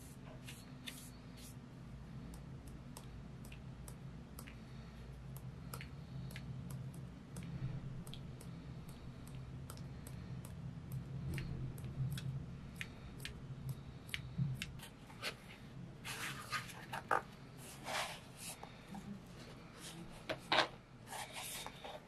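A paintbrush tapped to spatter sepia watercolour over journal pages: a run of light, irregular clicks. From about sixteen seconds in, louder crinkling and rustling of plastic sleeves and paper as a folder of ephemera is opened and handled.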